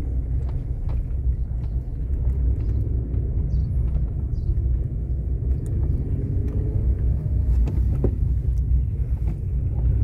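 Car interior noise while driving on a cracked asphalt road: a steady low rumble of engine and tyres, with a few small knocks scattered through it.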